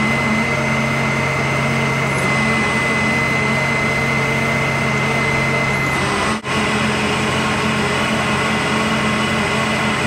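Steady machine drone, a low hum with a thin high whine over it, dipping out briefly about six seconds in.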